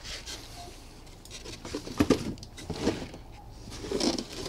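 Hands rummaging through a cardboard box of disassembled outboard motor parts: cloth rags and plastic bags rustle, with a few light knocks and clicks of parts being shifted, the loudest about two seconds in.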